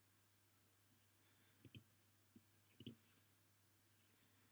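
Near silence with a few faint computer mouse clicks, two of them in quick pairs, over a low steady hum.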